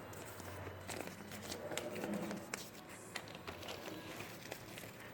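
Hands handling squishy toys and their packaging: scattered soft taps and light crinkles over a faint low hum.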